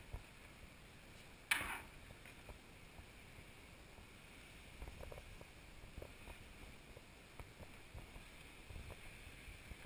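Flat floor mop gliding over a wooden floor: a quiet scraping with scattered light knocks, and one short, louder swish about a second and a half in.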